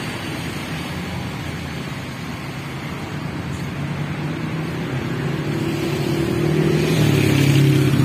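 Motorcycle engine coming up from behind and passing close, getting steadily louder to a peak near the end, over steady street traffic.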